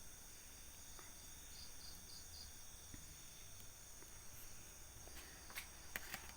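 Night insects, crickets, chirring faintly and steadily, with a quick run of four high chirps about two seconds in and a few sharp clicks near the end.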